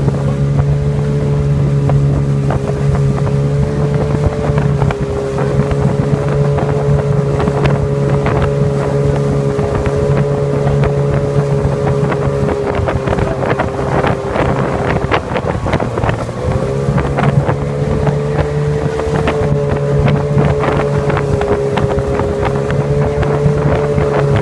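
Motorboat engine running at a steady pitch, with wind buffeting the microphone; about fifteen seconds in, the engine note dips briefly, then settles back.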